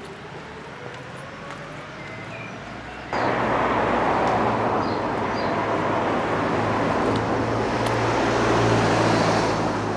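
Road traffic noise: a car passing close on the road, a steady rush of tyre noise over a low engine hum that starts abruptly about three seconds in. Birds chirp faintly before it.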